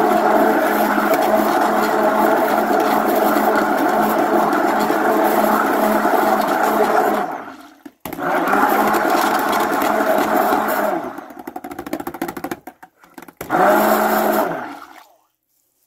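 Handheld stick blender running in raw soap batter, mixing in mica colorant. It runs steadily, cuts out briefly about halfway, runs again for a few seconds, then gives one short final burst near the end.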